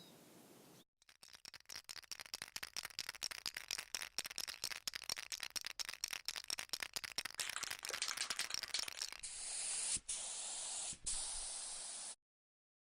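Aerosol spray-paint can shaken, its mixing ball rattling rapidly for about eight seconds, then sprayed: a steady hiss in three short blasts with two brief pauses, cutting off suddenly.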